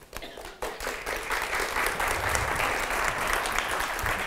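Audience applauding. A few scattered claps swell into full, steady applause about half a second in.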